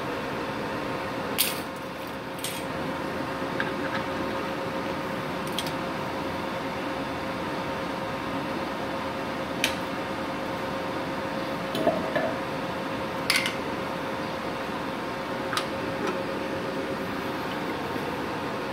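Inverter arc welders running with a steady fan hiss and a faint steady whine, while welding-cable connector plugs are pushed and twisted into the front sockets of a MultiPro MMA 200 G-KRK, giving sharp metallic clicks every few seconds.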